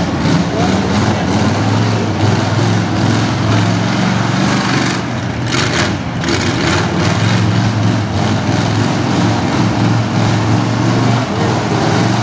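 Engine of an old GMC-bodied mega truck on tractor tyres running steadily as it crawls through mud, with a brief rushing noise about five seconds in.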